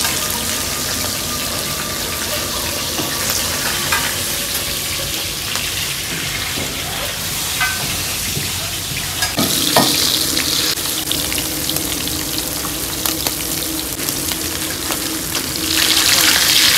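Hilsa fish steaks sizzling as they fry in shallow oil on a large round metal griddle, with a few clicks of a metal spatula against the pan. The sizzle swells louder near the end.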